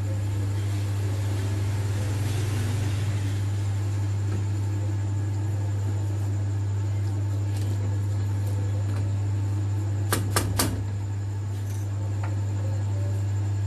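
A steady low mechanical hum, with a wooden spoon stirring thickening sauce in a pan; about ten seconds in, three quick sharp knocks.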